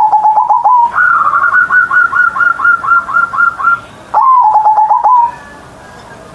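Zebra dove (perkutut) singing its cooing song. It opens with a phrase of quick staccato coos, follows with a longer run of about a dozen rapid, higher-pitched coos, and ends with another short staccato phrase about four seconds in.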